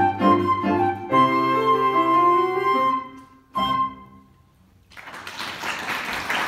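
Flute and Petrof grand piano playing the closing bars of a piece: repeated chords, a long held flute note, then a short final chord. After about a second of quiet, applause starts.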